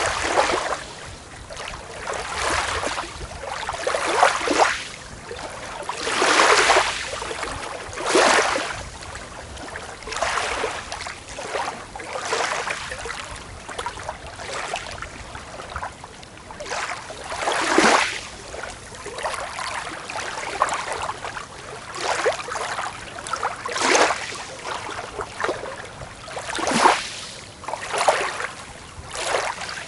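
Small waves breaking and washing on a beach, a wash of surf hiss every second or two, some swells louder than others.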